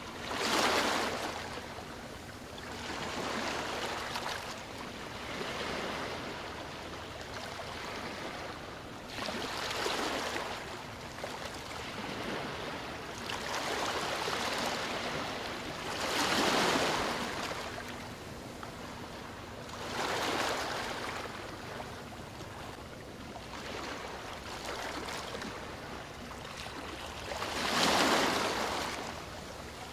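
Sea waves washing onto a shore, each wave swelling up and falling away every few seconds, with the biggest waves about a second in, halfway through and near the end.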